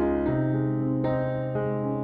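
Background piano music: sustained chords, with a new chord struck about a quarter of a second in and another near one second.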